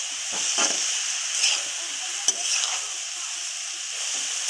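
Chopped onion stalks and potatoes sizzling steadily in oil in a metal karai while a spatula stirs them in with the turmeric, scraping across the pan in short strokes, with one sharp tap of the spatula on the pan about two seconds in.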